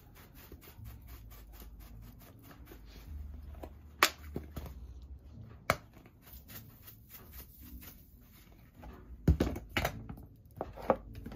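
Spice containers being handled and shaken over a foil pan of pasta: a few sharp clicks and knocks, the loudest about four seconds in, just before six seconds and around nine seconds, over a faint low hum.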